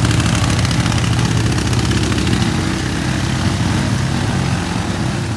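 ATV engine running loud and steady as the quad sits bogged down in deep mud.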